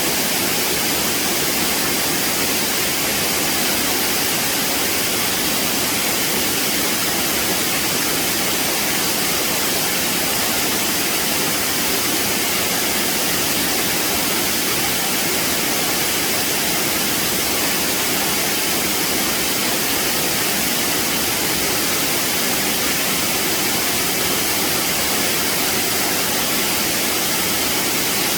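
Waterfall rushing steadily, a constant, even white-noise roar.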